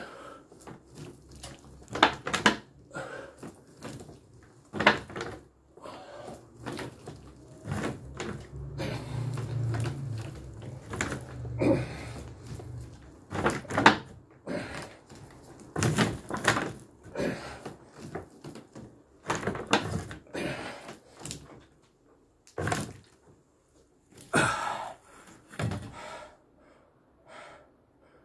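Irregular knocks and thumps, some sharp and some dull, from large water-filled plastic bottles swinging on a wooden pole and a wooden stool taking a person's weight during weighted squats.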